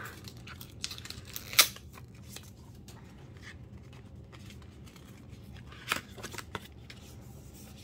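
Rustling and clicking of small card-and-plastic album packaging and photocards being opened and handled, with many light ticks and two sharper snaps, one about one and a half seconds in and one near six seconds.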